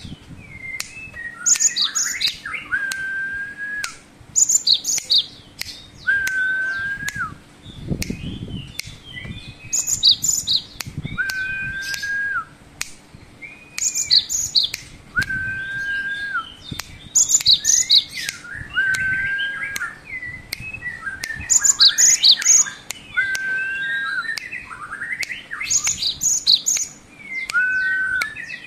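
Caged cinereous tit (gelatik batu) singing a repeated phrase about every three to four seconds. Each phrase is one steady whistle that lifts at its end, followed by quick, high, varied notes.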